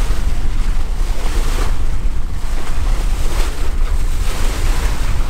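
Bow wave rushing and splashing along the hull of a wooden sailboat driving through choppy water in strong wind. The rush swells twice as the bow meets waves, under heavy wind buffeting on the microphone.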